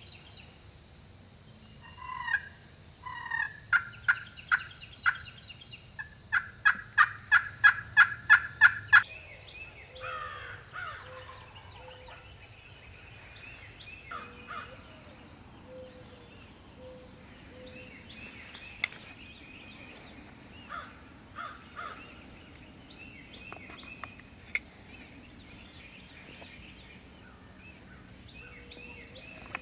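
Turkey calling: a few calls, then a loud run of about a dozen evenly spaced notes at about four a second. Small birds chirp faintly afterwards.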